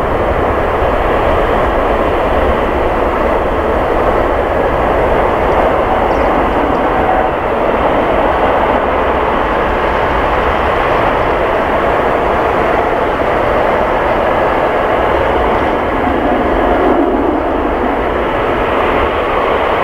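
Steady, even jet noise from an Airbus A380-861 airliner on final approach, its four Engine Alliance GP7200 turbofans running at approach power.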